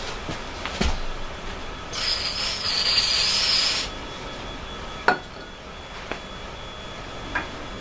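An aerosol can of cutting and tapping fluid sprayed once, a hiss of nearly two seconds. A sharp knock follows as the can is set down, with a few lighter clicks of handling around it.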